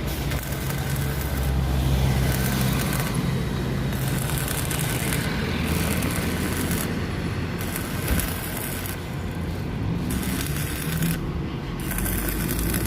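Stick welding with the new welding machine: the machine hums steadily underneath while the arc crackles and hisses in stretches of about a second, starting and stopping several times.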